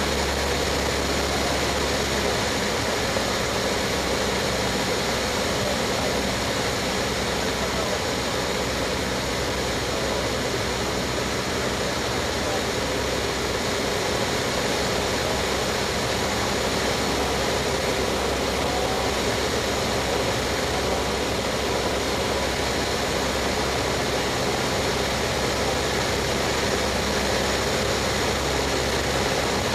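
Cessna 152's four-cylinder Lycoming engine and propeller running steadily in cruise flight, heard as a constant drone with the rush of airflow. The low hum shifts slightly about two seconds in.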